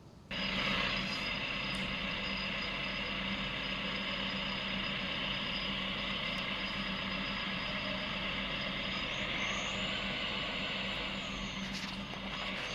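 A steady mechanical running noise with a low hum under a hiss, starting abruptly just after the start.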